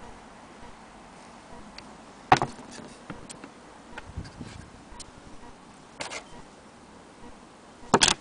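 Handling noise: a few sharp clicks and knocks as a small antique Willcox & Gibbs sewing machine head is turned over in the hand. The loudest knock comes about two seconds in, and a quick double knock comes near the end.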